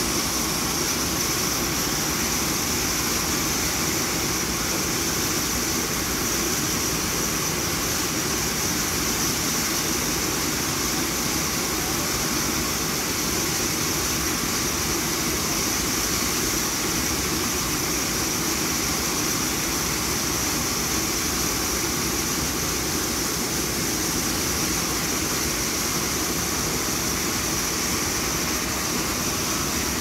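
Steady aircraft turbine noise on an airport apron: a continuous high whine over a rush of air that does not change, with no separate clunks from the closing cargo door standing out.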